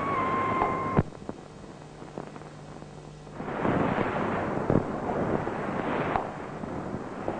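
Old 1950s film soundtrack: a held tone ends in a sharp click about a second in, then a faint hum, then a rushing noise that swells up past the middle for about three seconds, with a few thuds in it, before cutting off.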